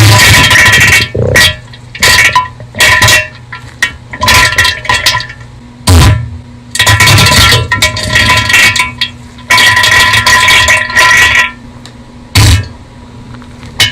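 Bass-boosted, heavily amplified diarrhea meme sound effect: a run of loud, irregular bursts, some short and some over a second long, with brief quieter gaps between them.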